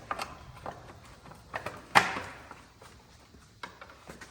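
Clicks and light knocks of parts being handled while refitting a motorcycle's gauge housing, with one louder knock about two seconds in that rings briefly.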